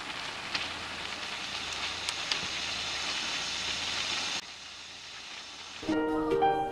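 Chicken cubes sizzling in hot oil in an iron wok, a steady hiss with a few sharp pops, turning quieter about four seconds in. Background music comes back in near the end.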